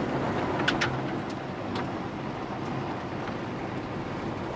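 Car interior noise while driving on a gravel road: steady engine and tyre rumble with gravel crackling under the tyres and a few sharp ticks about a second in.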